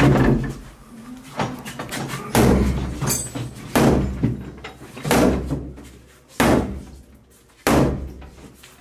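Sledgehammer striking a crowbar wedged into a door frame to force the door open: a series of about seven heavy metal blows, roughly evenly spaced, each ringing on briefly.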